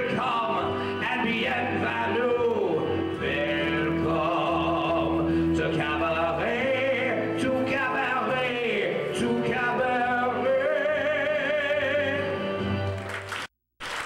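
Man singing the close of a Broadway show tune into a microphone over instrumental accompaniment, with long held notes with vibrato. The sound cuts out for a moment near the end.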